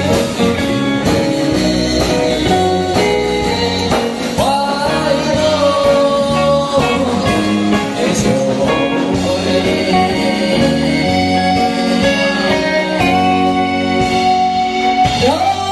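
A man singing into a microphone over band accompaniment with a steady drum beat, holding some long notes.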